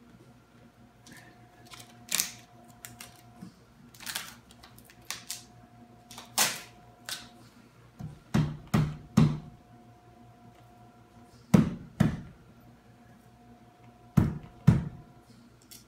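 Hands pressing and slapping clear packing tape down over glued edge banding on a countertop edge: a run of irregular sharp taps and thumps, the loudest coming in quick pairs.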